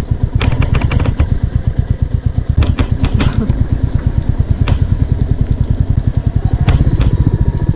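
Royal Enfield Meteor 350's single-cylinder engine running with its steady, thumping exhaust pulse. A quick run of sharp clicks comes about half a second in, and a few more clicks follow later.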